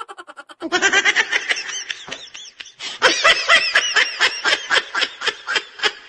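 High-pitched laughter in fast repeated ha-ha pulses, in two runs: one starting just under a second in, a short break, then a second, louder run from about three seconds in.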